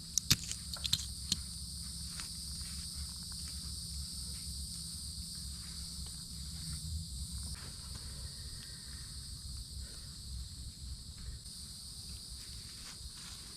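Steady chorus of insects chirring in two high-pitched bands, with a few sharp clicks in the first second and a half and faint scattered rustles after that.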